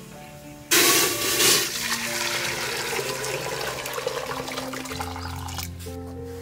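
Sudden rush of pouring or splashing water, starting about a second in, loudest at first and then easing off, over background music.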